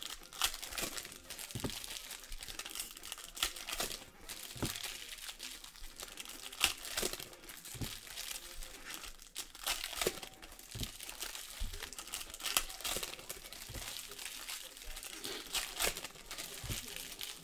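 Foil trading-card pack wrappers being torn open and crinkled by hand: an irregular crackling with sharp snaps throughout.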